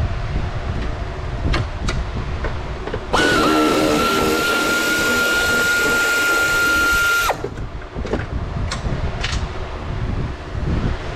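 A power tool's motor runs at a steady pitch for about four seconds, starting and stopping abruptly, with a few sharp clicks of tools before and after.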